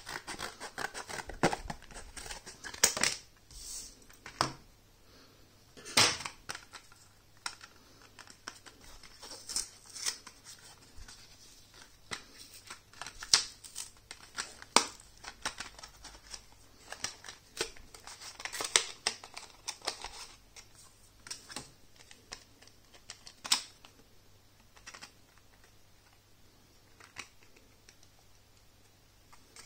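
Scissors cutting through a cardboard blister pack, then the card and its clear plastic tray being peeled apart and handled: an irregular run of sharp snips, crackles and clicks that thins out near the end.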